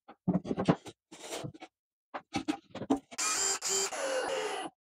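Wooden drawer worked onto metal ball-bearing drawer slides: a string of light knocks and clicks, then, about three seconds in, the slide running for a second and a half as the drawer is pushed along it.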